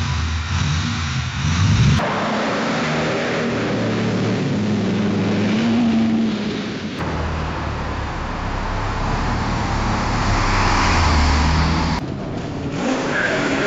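Car engines running and cars driving by, in several short clips joined by abrupt cuts about two, seven and twelve seconds in.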